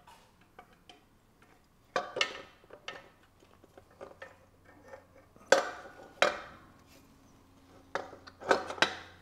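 Intake manifold being set onto a Subaru EJ20 engine and its bolts started by hand: a scattered series of sharp metal knocks and clinks, the loudest about five and a half seconds in.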